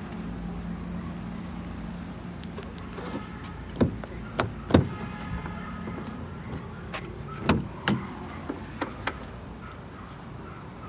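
Car doors of a Daewoo Lacetti SE being handled and opened: a series of sharp clicks and knocks from the door handles and latches, the loudest about four to five seconds in and a few lighter clicks near the end.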